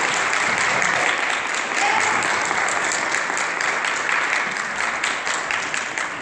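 Congregation applauding at the end of a sung piece: dense clapping that thins out near the end.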